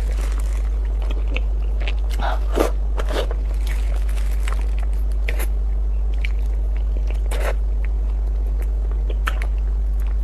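A person eating braised pork tail: scattered wet mouth smacks, sucking and chewing noises, a few sharper smacks near the start, over a steady low hum.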